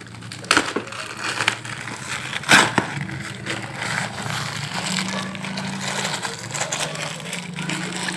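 Plastic wrapping crinkling and rustling as a folded umbrella fish trap is unwrapped and handled. There are several sharp cracks, the loudest about two and a half seconds in.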